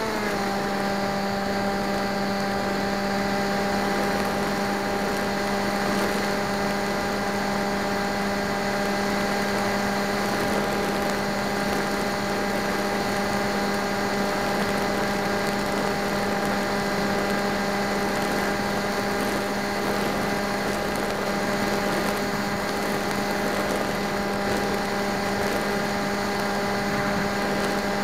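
Motor and propeller of an FPV model aircraft, heard from its onboard camera: a steady hum that drops a little in pitch right at the start as the throttle is eased back, then holds level, over steady wind hiss.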